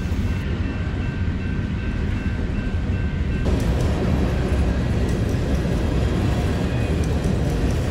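Freight train of covered hopper cars rolling past: a steady low rumble of steel wheels on rail joints, with fuller rattling added above it from about three and a half seconds in.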